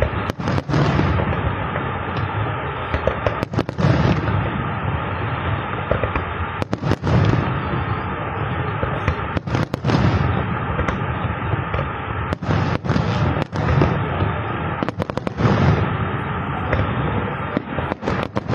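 Aerial fireworks display going off continuously: a steady wash of bangs and crackle, with a louder cluster of sharp bursts about every three seconds.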